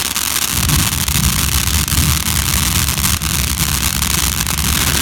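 Consumer firework hissing with faint crackles, over a strong, unsteady low rumble.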